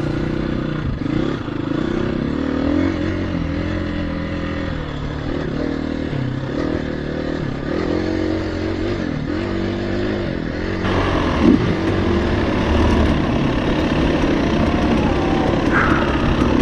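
KTM 350 EXC-F dirt bike's four-stroke single-cylinder engine being ridden off-road, its note rising and falling with the throttle. About eleven seconds in the sound grows louder and harsher.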